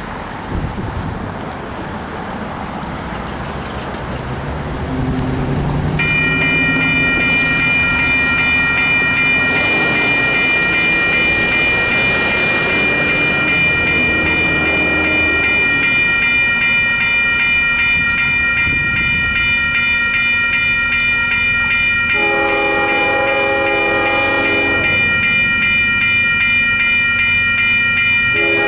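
Railroad crossing signals with Western Cullen Hayes electronic bells start ringing about six seconds in, a rapid, steady high-pitched ding that repeats on and on as the gates come down. Over the bells, an approaching freight train's horn sounds a chord for about three seconds near the end and starts again just at the close.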